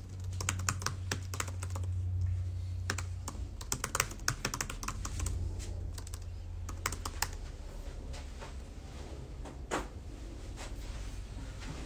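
Typing on a computer keyboard: quick irregular runs of keystrokes for about the first seven seconds, then scattered single clicks, over a low steady hum.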